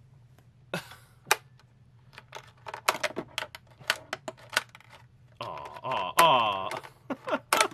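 Plastic flippers of a toy desktop pinball game clicking in quick, irregular strokes, with the ball knocking around the plastic playfield. A brief pitched sound with falling tones comes about five and a half seconds in.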